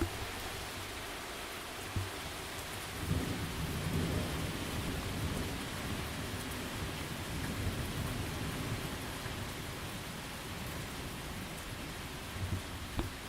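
Steady heavy rain falling, with a long roll of thunder that begins about three seconds in and rumbles on for several seconds before fading.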